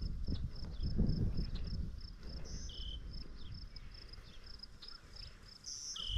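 An insect chirping steadily in a high-pitched even rhythm, about three chirps a second, with a few short bird-like chirps over it. Low rustling noise in the first couple of seconds.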